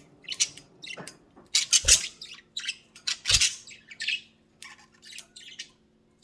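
Budgerigar chirping and squawking in a string of short, scratchy calls, with two soft low knocks, about two seconds in and a little after three seconds.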